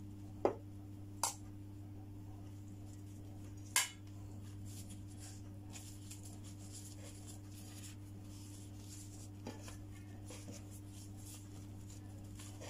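A few sharp clicks of a spoon knocking against a plate and steel colander while lumpia filling is spooned out, the loudest about four seconds in. Then faint rustling and light tapping as gloved hands roll the wrapper, over a steady low hum.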